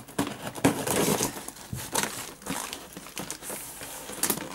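Sticky parcel tape being pulled off a cardboard box and the cardboard handled as the box is opened, giving an irregular run of crackling, rustling and tearing.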